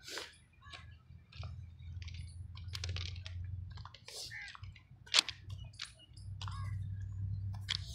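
Scattered short clicks and crackles at irregular intervals, one sharper than the rest about five seconds in, over a low steady rumble.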